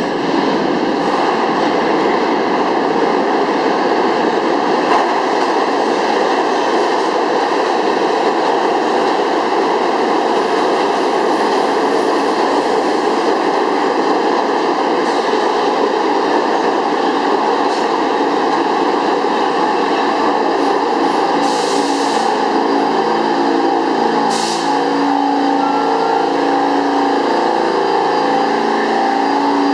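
R46 subway train running into an underground station: a loud, steady rumble and rattle of steel wheels on the rails. About three-quarters of the way through come two short hisses, and from then on a pattern of stepping tones rises over the rumble as the train slows.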